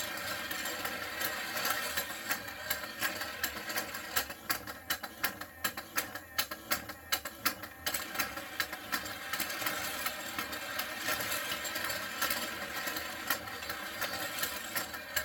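Battery-powered Dalmatian puppy racetrack toy running: its motorized plastic staircase whirs and clatters as it lifts the puppy figures, with rapid clicking as they slide along the plastic tracks. About four seconds in, the steady whir drops back and single clicks stand out for a few seconds before the clatter fills in again.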